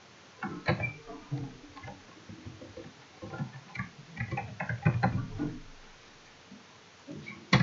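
Computer keyboard typing in irregular bursts of keystrokes, then one sharp click near the end.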